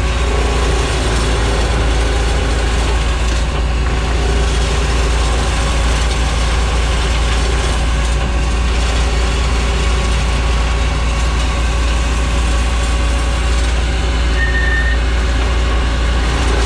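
A heavy engine running steadily under load, with a dense mechanical clatter over a low, even hum.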